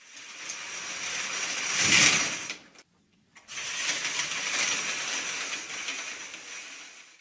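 Stage curtain sound effect: a curtain drawing closed, growing louder to a peak about two seconds in and stopping abruptly. After a brief pause it draws open again, fading near the end.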